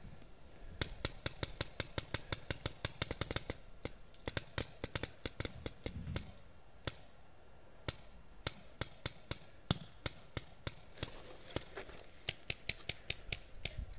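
Paintball markers firing: rapid strings of sharp pops at about ten shots a second, broken by single shots, with a second fast string near the end.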